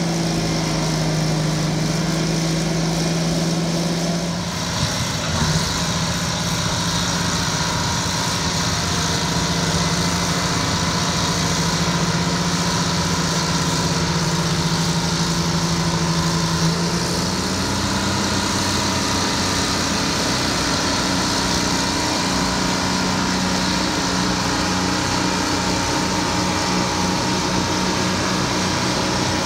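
Twin Detroit Diesel 6-71 two-stroke engines of a Euclid TC-12 crawler dozer running steadily as it pushes dirt with its blade. The engine note shifts about four seconds in and rises slightly around seventeen seconds in.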